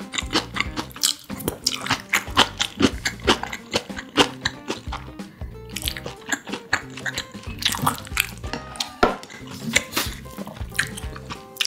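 Close-miked eating sounds: wet chewing and many quick mouth smacks as rice with stir-fried kimchi is eaten, with a spoon and chopsticks tapping and scraping a tin lunch box. Background music plays underneath.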